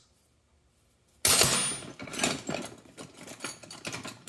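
Metal hand tools (wrenches, sockets, screwdrivers) clattering and clinking as they are rummaged through in a tool bag. A loud clatter comes about a second in, then irregular clicks and rattles.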